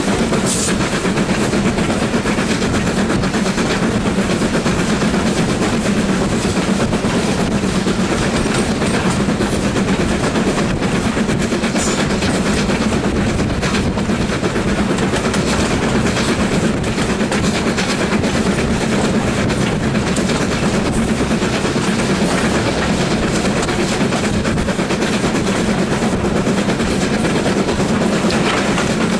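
BR Standard Class 4MT 2-6-0 steam locomotive 76084 working hard, its exhaust beating steadily, heard from an open carriage window over the clatter of the carriages on the rails.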